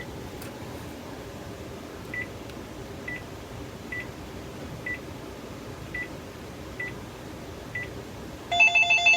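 Panasonic KX-TG1031S cordless handset giving short single key beeps about once a second as its menu buttons are pressed. Near the end its ringer starts playing a loud, fast-warbling multi-tone ring, set to full volume.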